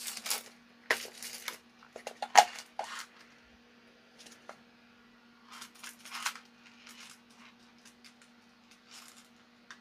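Small clear plastic screw box being handled and rummaged, with screws rattling and clicking against the plastic in scattered bursts and one sharper click about two and a half seconds in. A faint steady hum runs underneath.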